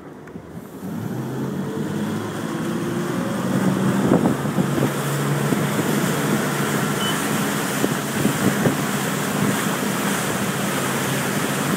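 Wake boat engine powering up about a second in to pull a wake surfer out of the water, then running steadily under load, with wind on the microphone and the rush of the boat's wake.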